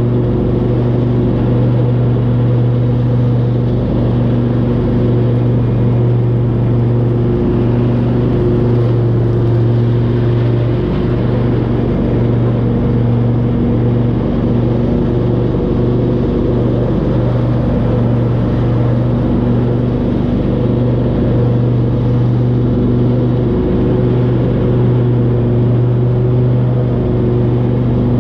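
Riding lawn mower engine running steadily at constant speed while mowing, a steady, even hum.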